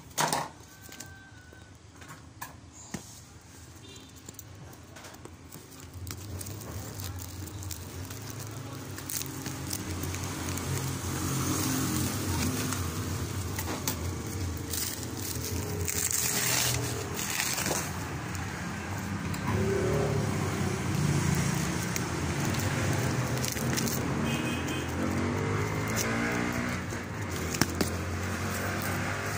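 Plastic wrapping crinkling and rustling as a boxed welding machine and its accessories are handled. From about six seconds in, an engine hum rises underneath and becomes the loudest sound.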